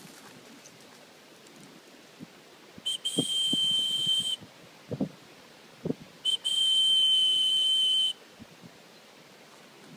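A dog whistle blown twice, each blast a steady high note held about a second and a half, calling the dogs back.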